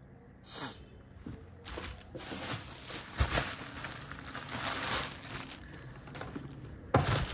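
Rustling and crinkling of paper stuffing and suede as a pair of shoes is handled on a display stand, with scattered light knocks and one sharp knock about seven seconds in.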